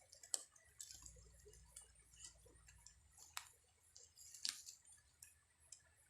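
Faint, irregular clicks and small ticks, the sharpest about three and a half and four and a half seconds in.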